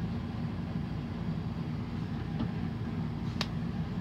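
Steady low room hum, with a faint click about two and a half seconds in and a sharper click about a second later.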